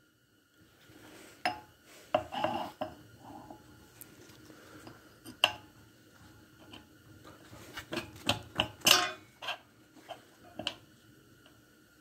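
Irregular metal clinks and scrapes as a V-belt pulley with a re-bored hub is slid and worked by hand onto the steel shaft of a 3 hp electric motor, a snug fit. The clinks come in small clusters, busiest about two seconds in and again around eight to nine seconds in.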